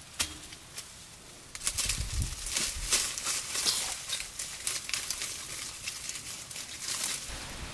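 Irregular rustling and crackling, a dense run of small dry crackles beginning about one and a half seconds in and easing off near the end.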